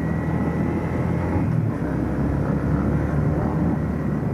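Yamaha Sniper 150's single-cylinder four-stroke engine running steadily while the motorcycle cruises, mixed with wind and road noise.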